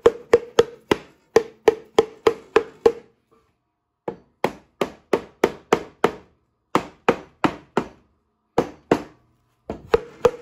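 Rubber mallet tapping the finger joints of a wooden bee box down into place: quick, evenly spaced knocks about three a second, in runs broken by short pauses.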